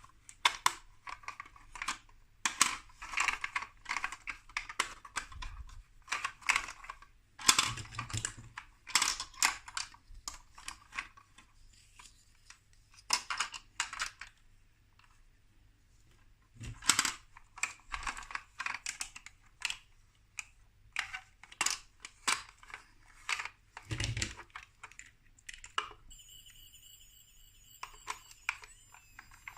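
Small plastic building-block pieces clicking, tapping and rattling in irregular clusters as they are handled and pressed together. Near the end a steady high electronic tone with a wavering warble above it starts.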